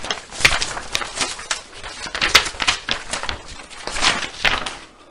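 A run of irregular sharp clicks and rustles of uneven loudness, which cuts off abruptly at the very end.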